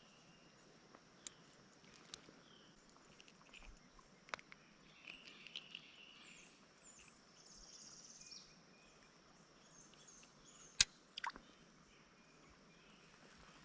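Quiet streamside outdoor ambience with faint high bird chirps, broken by a few sharp clicks; the loudest click comes about eleven seconds in.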